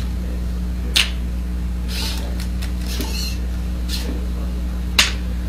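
Delta robot arm's motors whirring in short bursts as the arm moves over and away from a checkers board, over a steady electrical hum. There are two sharp clicks, about a second in and near the end.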